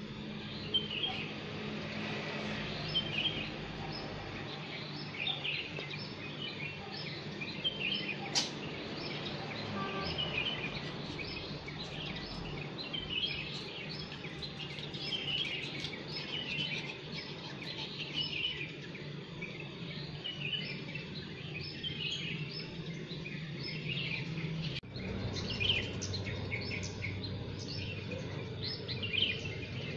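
Many small birds chirping and singing in the morning, short overlapping calls one after another, over a steady low background hum.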